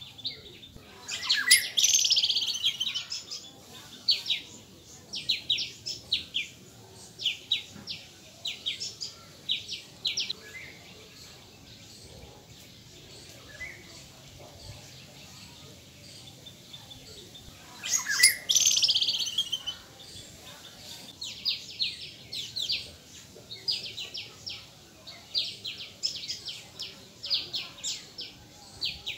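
Small birds chirping in quick series of short, high notes, with two louder calls that sweep downward, one near the start and one past the middle.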